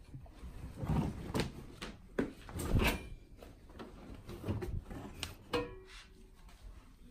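Damp laundry being pulled by hand out of a front-loading washing machine drum: fabric rustling, with several irregular knocks and bumps against the machine.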